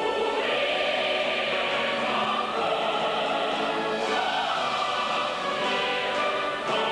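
A group of singers, women's voices to the fore, singing a song together in a full, operatic style with orchestral accompaniment.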